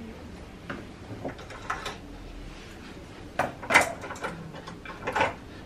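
Several short knocks and scraping rustles of handling on a grooming table, the loudest cluster a little past halfway and another near the end.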